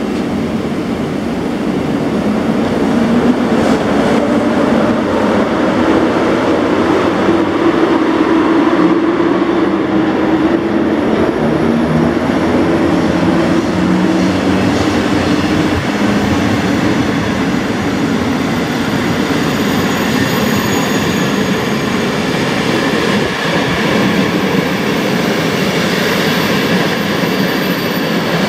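EP07 electric locomotive pulling a train of passenger coaches out of a station: a steady rolling rumble of the coaches' wheels on the rails, with a low hum that is strongest in the first half and fades as the coaches pass.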